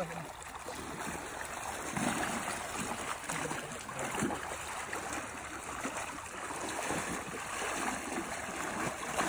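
River water flowing and sloshing, with swells as a wader pushes his legs through the current.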